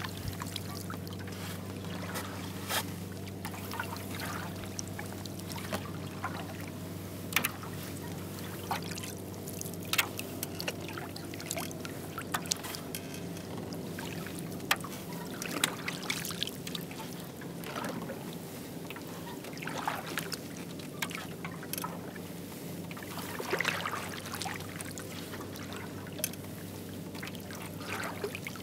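Kayak paddling: a double-bladed paddle dips and pulls through calm water, with irregular drips, small splashes and knocks. A steady low hum runs underneath.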